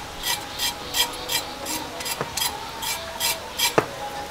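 Large kitchen knife scraping over a piece of cow skin held in the hand, in short strokes about three a second, cleaning the skin's surface.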